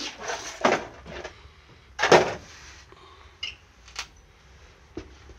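Footsteps on a debris-strewn aircraft floor: irregular crunching and knocking of loose sheet metal and rubble underfoot, with a louder crunching scrape about two seconds in and a few sharp single clicks after it.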